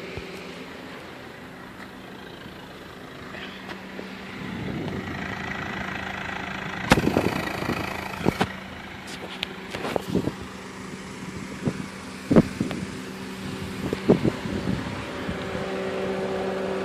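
A 2008 Honda Civic's 1.8-litre four-cylinder engine idling steadily, with several sharp clunks and clicks as parts of the car are handled, the loudest about twelve seconds in.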